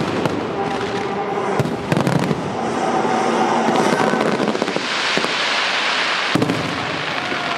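Aerial fireworks shells bursting in quick succession with dense crackling from falling glitter. Sharp bangs come about one and a half seconds in, again shortly after, and a loud one near the end.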